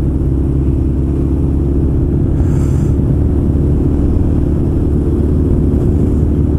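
Carburetted motorcycle engine with an aftermarket muffler running steadily at cruising speed, heard from on the bike.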